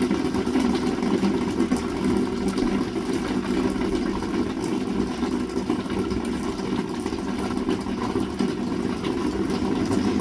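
Heavy rain falling steadily: a dense, even low rumble with scattered sharper drop ticks through it.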